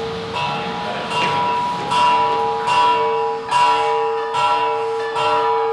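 Bell-like chiming: a ringing metallic tone at one steady pitch, struck again and again a little under once a second, with bright overtones ringing above it.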